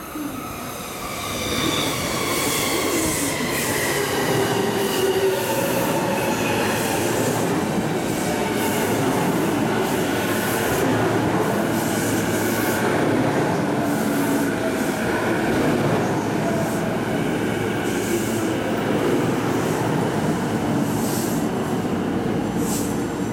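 JR East E233-1000 series electric train pulling into the platform and slowing to a stop. Its traction motors whine in several tones that fall in pitch as it brakes, and its wheels click over rail joints.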